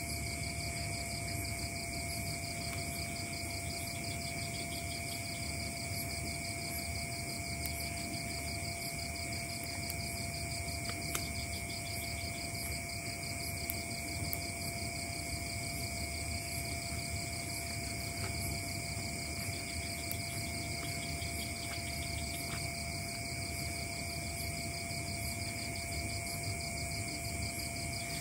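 Night-time tropical forest insect chorus: several insects trill steadily at different pitches, one of them in a fast even pulse, over a low steady hum, with a few faint clicks.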